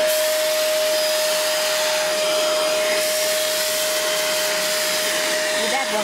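Vacuum cleaner running steadily, a constant whine over a rushing air noise, as its crevice nozzle is worked along model railway track.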